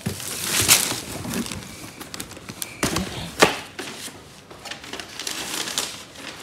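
Wrapping paper crinkling and a cardboard gift box being handled and opened, with two sharper crackles, one about a second in and one about halfway through.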